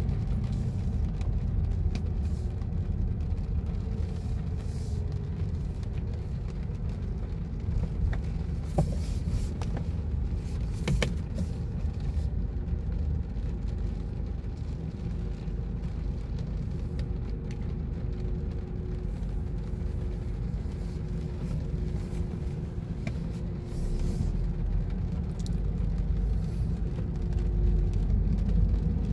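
Car cabin noise while driving slowly: a steady low rumble of engine and tyres, with a few faint clicks about a third of the way in.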